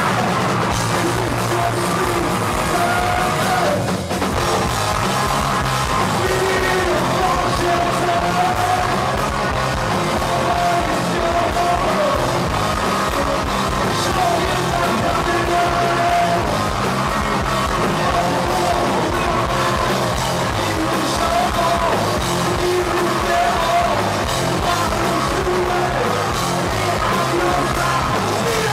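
Punk rock band playing live: electric guitars, bass guitar and a drum kit at a fast steady pace, with sung and shouted vocals.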